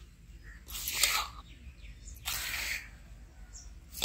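Hands rubbing and tossing a heap of dry flour, cocoa and ground-biscuit powder in a large metal bowl, making a soft swishing rustle twice: about a second in and again a little past halfway.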